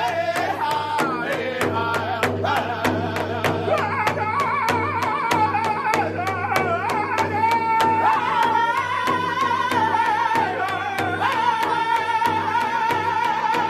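Powwow drum group singing a high, wavering song over a steady beat struck together on a large powwow drum.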